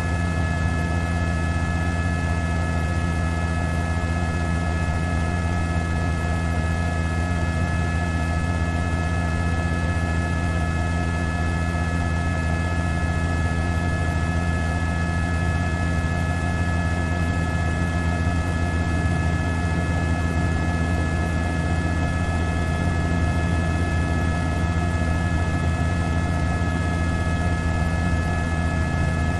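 Steady, unbroken drone with a strong low hum and several constant high whining tones: the running noise of the news helicopter filming from overhead.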